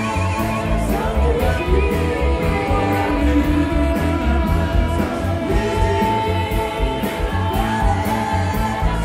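Live electric blues band playing: electric guitars, bass and a steady drum beat, with singing over the top.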